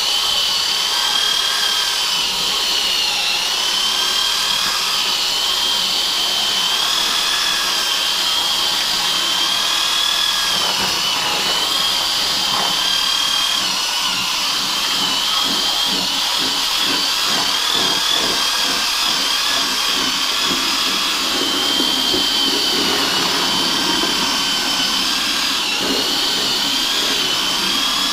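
Corded electric drill running steadily with a sharpened paddle-type cement mixer attachment, churning and crushing grapes into mash in a plastic bucket. The motor's high whine wavers slightly as the load changes.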